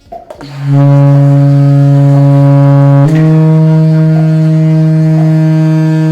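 Saxophone playing long tones on its lowest notes: one low sustained note that steps up to a second note about three seconds in and is held. A metronome clicks faintly about once a second, set to 60.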